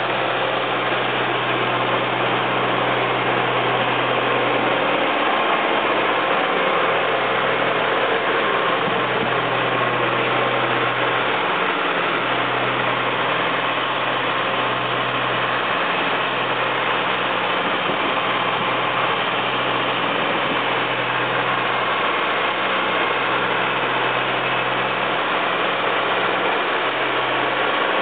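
Red Fiat tractor's diesel engine running steadily at low revs, an even rumble with no change in speed.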